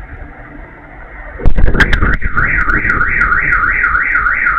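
A sudden loud bang, likely a distant explosion's blast, about a second and a half in, and right after it a car alarm starts wailing, its pitch sweeping up and down about three times a second.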